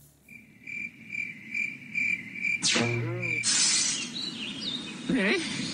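Cartoon night-ambience effect of a cricket chirping in short, even pulses about three times a second. About halfway through, a quick falling swoop with a low hum and a burst of hiss cuts across it, followed by a few small high chirps near the end.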